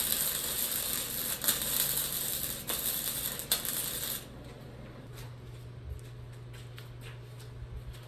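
Arc welder crackling and popping as a weld is laid, cutting off abruptly about four seconds in; a low steady hum carries on, with a few faint ticks.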